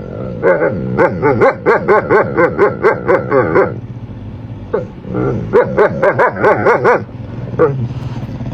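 A dog barking in quick repeated yaps, about four or five a second, in two runs with a short break between them and one last yap near the end.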